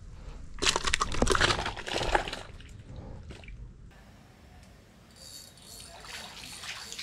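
Fish splashing and thrashing in a plastic bucket of water as a caught tilapia is dropped in, a burst of wet slaps lasting about a second and a half shortly after the start, then dying away.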